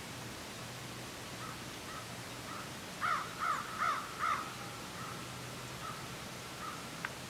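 A bird calling: four short calls in quick succession about three seconds in, over a faint steady background. A single sharp click comes near the end.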